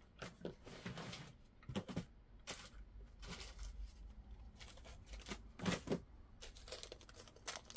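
Soft, scattered clicks and rustles of small beading parts and tools being handled while a jump ring is picked out and put on, with a couple of sharper clicks about two seconds in and near six seconds.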